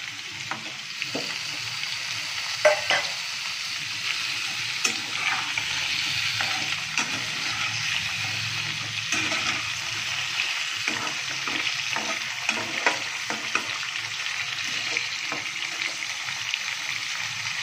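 Sliced radish frying with onions in hot oil in a kadai: a steady sizzle, with scattered clicks and scrapes of stirring against the pan, the sharpest about two and a half seconds in.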